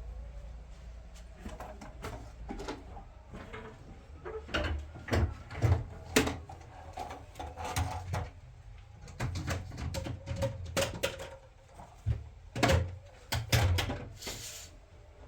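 Irregular knocks, clicks and clatter of hard objects being handled, loudest about five to six seconds in and again between twelve and fourteen seconds in, with a short hiss near the end.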